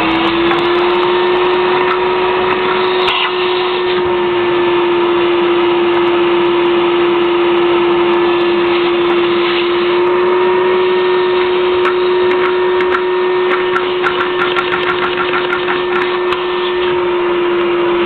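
Vacuum cleaner motor running with a steady, loud hum, its suction driving a single-cylinder Lego vacuum engine through a hose. Light, rapid clicking of the Lego engine's moving parts comes through in the second half.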